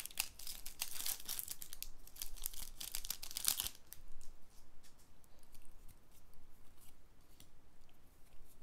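A Pokémon trading card booster pack's foil wrapper being torn open and crinkling for the first four seconds or so, then softer scattered rustles and clicks as the cards are handled.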